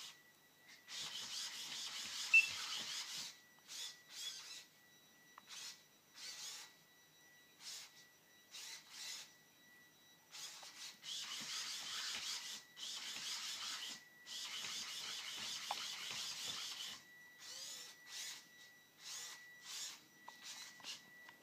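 Dynamixel AX-12 servos of a hexapod robot whirring in bursts as the legs and neck move: several runs of two to three seconds and many short spurts, with pauses between. A faint steady high tone sits under it.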